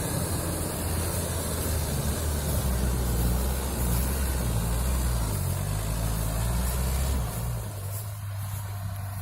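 TROM all-terrain vehicle's engine running with a low drone that shifts in pitch, then drops to a quieter, steady lower hum near the end.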